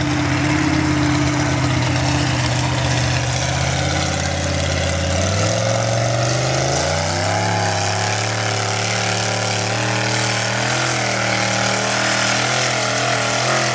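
Lifted mud truck's engine running steadily, then revving up about five seconds in and pulling under load, its pitch wavering up and down as the big tires churn through the mud pit.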